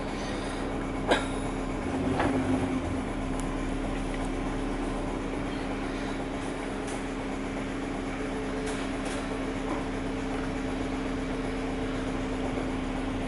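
Interior running noise of a moving bus: a steady engine drone with a constant hum, a sharp click about a second in and a brief rattle around two seconds in.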